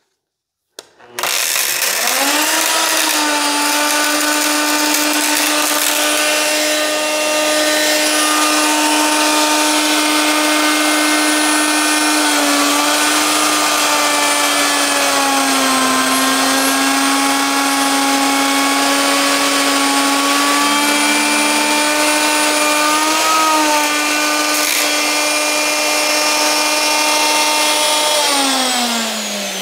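Triton router starting about a second in, spinning up to a steady high whine as it makes a surfacing pass over a walnut slab, its pitch dipping briefly a few times under load. It is switched off near the end and winds down with a falling whine.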